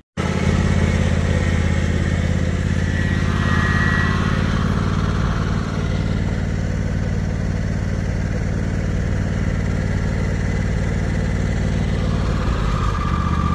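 Riding lawn mower's small engine running steadily close by.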